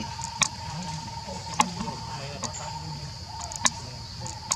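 Steady insect drone of a forest, a high buzz with a constant thin tone beneath it, with four sharp clicks spread through it.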